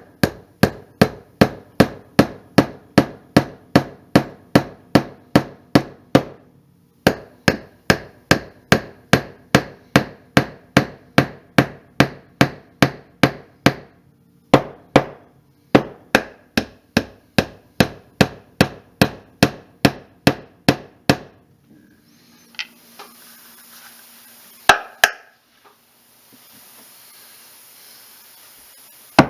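Small tack hammer tapping quickly, about three light blows a second, driving glued pins into a walnut gunstock. The tapping breaks off briefly twice, stops about two-thirds of the way through, and gives way to a faint steady hiss with two single taps.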